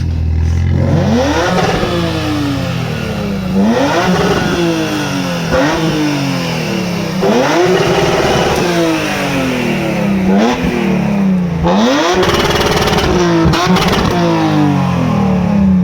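Car engine revved repeatedly, about seven blips rising and falling in pitch, two of them held briefly at high revs. There are a few sharp crackles on the later revs, close to a backfire.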